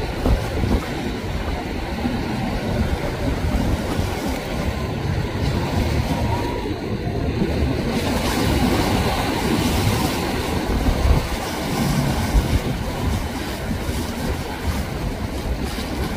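Rough surf breaking and churning as a large motor yacht ploughs through the waves, with wind gusting on the microphone.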